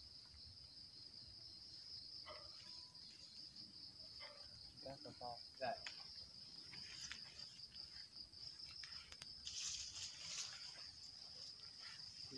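Crickets chirring steadily at night in one continuous high-pitched band, faint against the dark.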